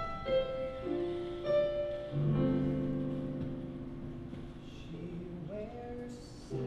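Piano playing the introduction to the song: notes and chords struck one after another and left to ring, growing softer after the first few seconds, with a short hiss near the end.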